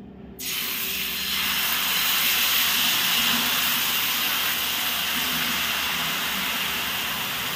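Ghavan batter of rice and dal sizzling on a hot tawa griddle. The hiss starts suddenly about half a second in as the batter is ladled on, then holds steady. The batter sizzles and turns lacy with holes the moment it is poured, the sign of a well-heated tawa.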